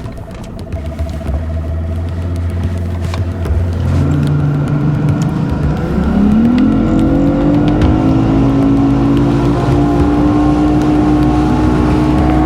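Boat outboard motor running, then speeding up with a rising pitch about six seconds in and settling into a steady high-speed run.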